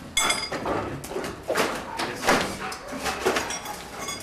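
German shepherd moving about on a concrete floor and tarp: scuffling and a few sharp knocks, with some brief dog-like sounds.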